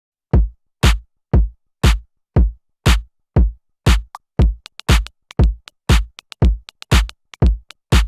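Electronic drum-machine beat: a deep kick drum hitting steadily about twice a second, with short, crisp hi-hat-like ticks added between the kicks from about halfway through.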